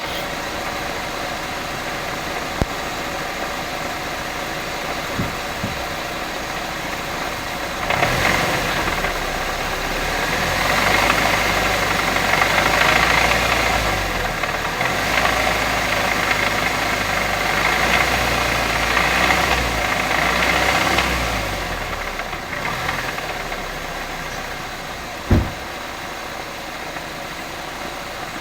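Saab B207R 2.0-litre turbocharged four-cylinder engine idling with a knocking noise. It is revved up and held higher from about eight seconds in, then drops back to idle a little after twenty seconds. A single sharp thump comes near the end.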